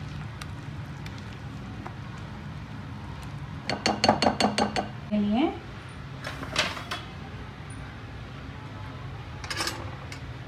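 Kitchen utensils clinking: a quick run of about eight sharp clinks about four seconds in, then two shorter clattering knocks later, over a steady low hum.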